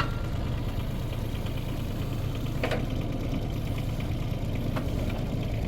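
Mini excavator's diesel engine running steadily, with a single light knock about halfway through.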